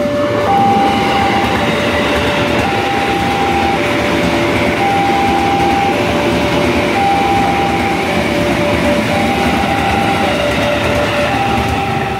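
A KRL Commuter Line electric train passing close by on wet track, a steady rumble of wheels on rail. Over it a level-crossing warning sounds two tones, high and low, alternating about once a second.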